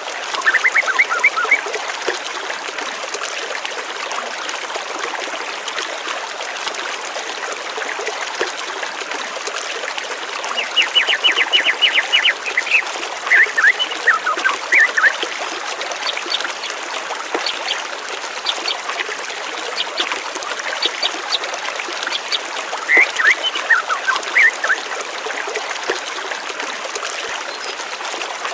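Steady rush of flowing water, with small birds chirping over it now and then: chirped phrases near the start, a fast trill about eleven seconds in, more chirps soon after, and again about two-thirds of the way through.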